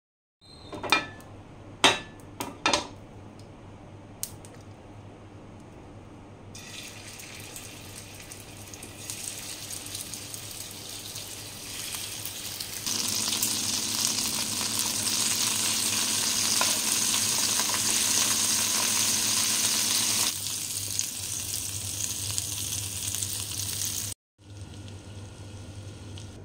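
Seekh kababs sizzling in hot oil on a nonstick grill pan, a dense hiss that builds up and then runs loud for several seconds. A few sharp knocks come before the frying starts.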